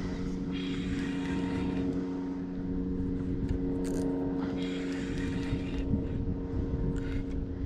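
Outboard motor running at a steady pitch, with a low rumble of wind and water underneath.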